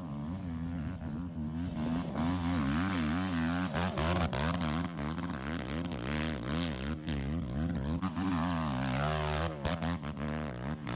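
Quad ATV engine revving hard under load in loose sand, its pitch rising and falling rapidly as the throttle is worked; it gets louder about two seconds in.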